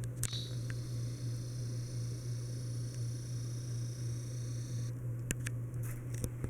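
Encon Casanova ceiling fan running with a steady low motor hum. A high-pitched whine sits over it from just after the start until about five seconds in. A few light clicks come near the end.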